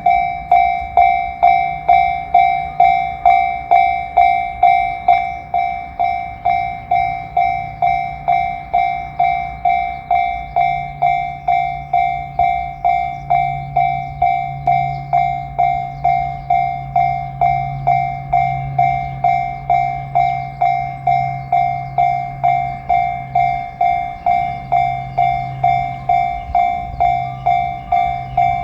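Japanese railway level crossing's electronic warning bell ringing in an even, steady beat of about two strikes a second. From about ten seconds in, a train's low drone joins it underneath.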